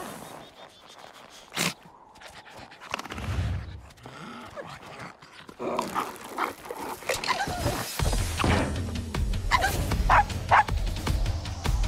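Small animated dog making short dog vocal sounds over soundtrack music; a steady bass beat comes in about eight seconds in. There is a single sharp hit about a second and a half in.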